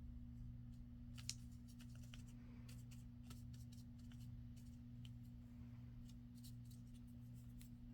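Faint scattered clicks and rustles of paper being handled and pressed at a craft table, one slightly louder tick about a second in, over a steady low electrical hum.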